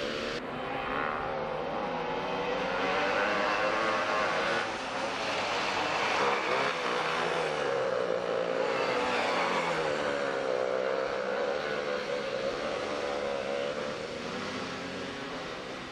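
Go-kart engines running, their pitch rising and falling as the karts speed up and slow down through the corners. Loudest about six seconds in.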